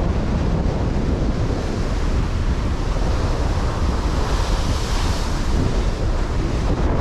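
Strong wind buffeting the microphone over heavy surf breaking against a rock ledge, with a wave crashing and spraying up about four to five seconds in.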